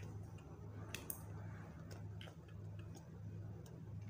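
A few scattered faint clicks and taps of hard plastic parts as a shotgun microphone is handled and fitted onto its mount on a handheld video rig, over a steady low hum.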